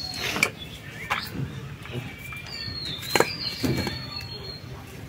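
Vegetables being sliced on a bonti, a fixed upright curved kitchen blade: a handful of short, sharp cuts and knocks. A bird's thin, high call is heard from about halfway through.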